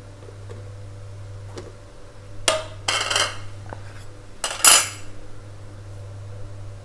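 Ceramic crockery clattering as a plate and a small bowl are handled and set down on a kitchen counter: three short knocks about two and a half, three and four and a half seconds in, the last the loudest. A low steady hum runs underneath.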